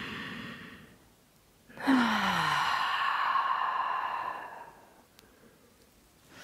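A person's deep breath: a full inhale finishing, then after a short pause one long releasing exhale through the mouth. The exhale is an audible sigh that opens with a brief falling voiced 'ahh' and trails off as breath over about three seconds.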